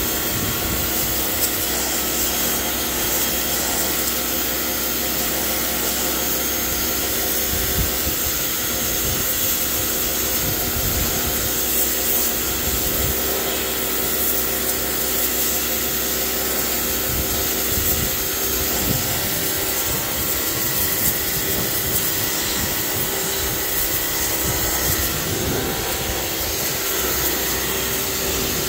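Electric pressure washer running steadily, its motor and pump humming under the hiss of the high-pressure jet striking wet wooden deck boards.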